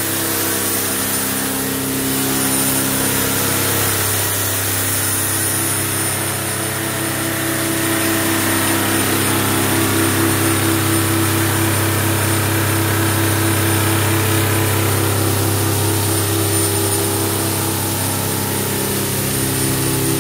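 Detroit Diesel 4-53T, a mechanically governed four-cylinder two-stroke turbo diesel, running steadily at a constant speed on an engine dyno.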